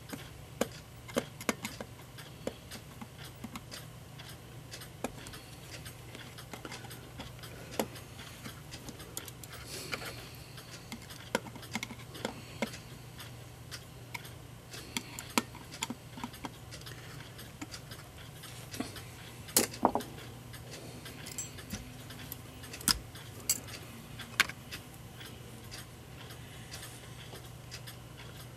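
Irregular small metallic clicks and taps as brass clock-movement parts and hand tools are handled during reassembly, over a steady low hum; the loudest clicks come about two-thirds of the way through.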